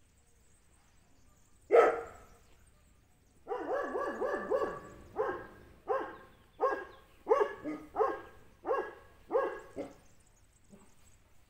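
A dog barking: a single bark about two seconds in, then a quick run of barks, then a steady string of about seven barks, a little over one a second, that stops near the end.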